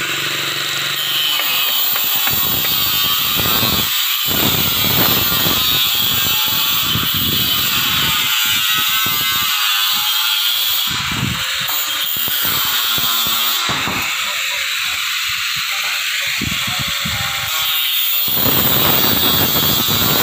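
Handheld angle grinder cutting through a corrugated steel deck sheet: a steady loud whine and grinding hiss, its pitch wavering as the disc bears into the metal.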